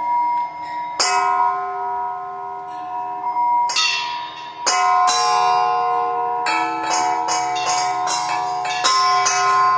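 Metal bells struck one after another, each left ringing so that their bright, bell-like tones overlap. The strikes are spaced out at first and come quicker and closer together from about six and a half seconds in.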